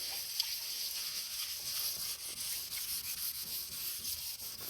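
Wet paper napkin dipped in wood ash rubbed back and forth on fireplace door glass, a steady scratchy scrubbing that wipes off soot.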